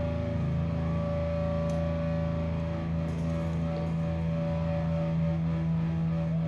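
Live rock band's distorted electric guitar and bass holding a long, steady sustained chord, with effects on the guitar.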